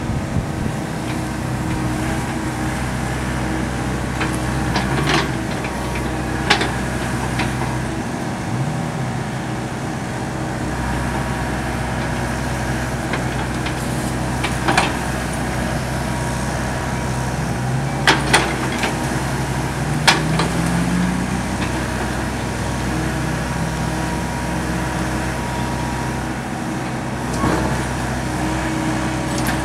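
John Deere compact excavator's diesel engine running steadily, its note rising and falling a few times as the arm works, with about half a dozen sharp clanks as it digs.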